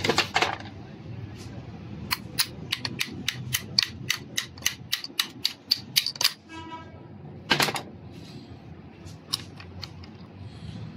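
A rapid run of sharp metallic clicks, about four a second, lasting about four seconds, with a knock at the start and another about two-thirds of the way through, just after a brief ringing tone. The clicks and knocks come from metal parts of a Toyota 2L diesel injection pump being handled during reassembly.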